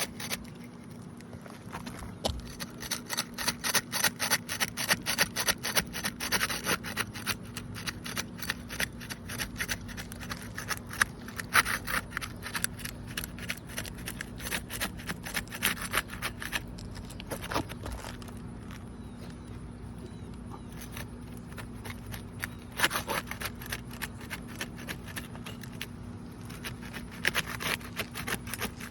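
Thin flat seal-breaking tool scraping and prying under asphalt roof shingles, tearing through the adhesive seal strip: rapid rasping strokes in several runs with short pauses. A steady low hum sits underneath.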